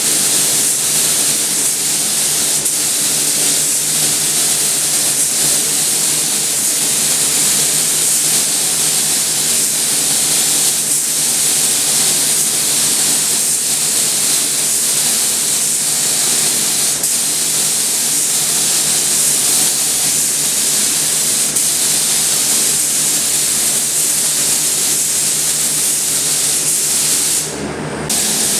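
Air spray gun spraying primer: a loud, steady hiss of compressed air and atomised paint, with a faint low hum underneath. The hiss stops briefly near the end as the trigger is let go, then starts again.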